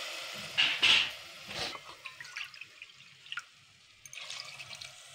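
Water poured from a steel bowl into a pressure cooker of hot, freshly fried chickpea masala. It splashes a few times in the first two seconds while a hiss dies away, then goes on as faint drips and trickles.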